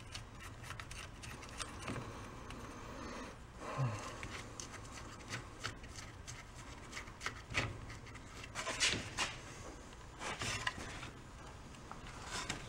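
Small metal clicks, scrapes and rubbing as parts are handled and worked loose on a rusted small engine's crankcase and crankshaft, with a few louder clinks a little after the halfway point.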